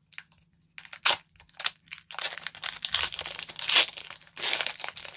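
Foil wrapper of a Pokémon trading-card booster pack crinkling as it is handled and torn open: a few sharp crackles about a second in, then steady crinkling from about two seconds in.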